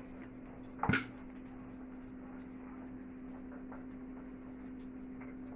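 Hands gathering and working soft tart dough in a bowl, a faint scratchy rubbing, with one sharp knock about a second in, over a steady low hum.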